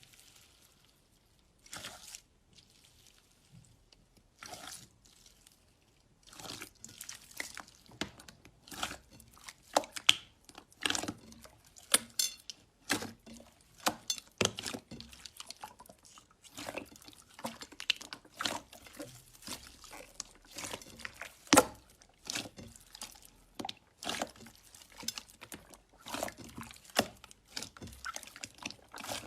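Slime being squeezed and pressed by hand, making wet, irregular clicking and popping sounds. There are only a couple of isolated pops at first, then the pops come thick and fast from about six seconds in.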